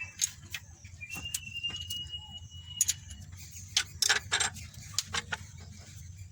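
Irregular metallic clicks and taps of hand tools on the rocker-arm adjusting screws and locknuts while the valve clearance is set, with a thin steady whistle for about two seconds near the start.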